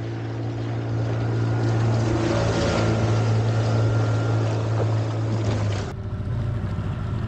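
Outboard motor on an inflatable dinghy running at speed: a steady low hum over rushing water and wind. The sound changes abruptly about six seconds in.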